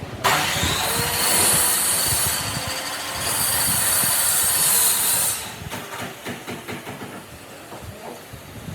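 An electric woodworking power tool starts with a quick rise in pitch, runs steadily with a high hiss for about five seconds, then stops. Light knocks and clicks follow.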